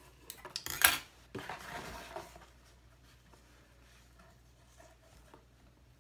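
Metal scissors set down on a cutting mat with a sharp clack about a second in, after a few lighter clicks, then a brief rustle of the cardboard box and ribbon being handled, fading to faint small ticks.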